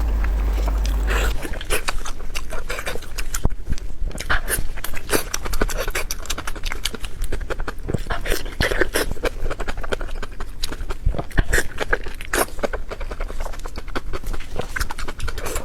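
Close-miked eating sounds: rapid, irregular wet smacking and chewing clicks from someone eating with their mouth near the microphone.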